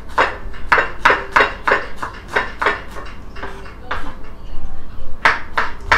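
Knife chopping on a wooden cutting board: a quick, even run of cuts at about three a second, pausing around halfway and starting again briefly near the end.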